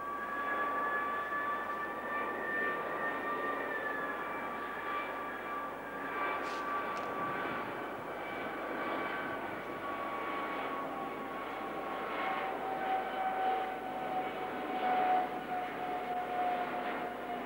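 Airbus A300 jet engines on approach: steady jet noise with high whining tones, and the pitch slowly falls through the second half.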